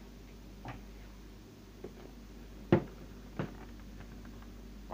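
Four short, light knocks or taps, the one near three seconds in the loudest, over a faint steady hum.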